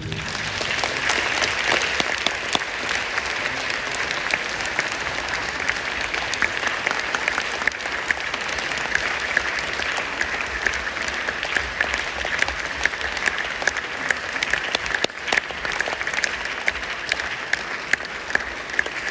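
Theatre audience applauding steadily, with many individual claps standing out, after a ballet variation ends.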